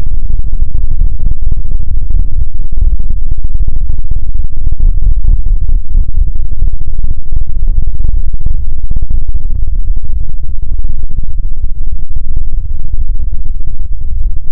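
A loud sound effect slowed far down, heard as a steady, deep, rumbling noise with no clear pitch, held near full volume throughout.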